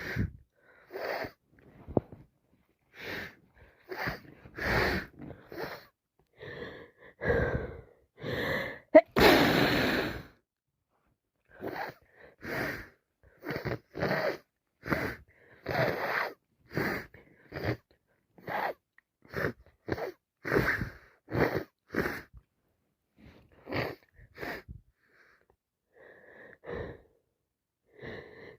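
A girl with a head cold breathing in short, wheezy gasps about once a second, with one loud sneeze about nine seconds in.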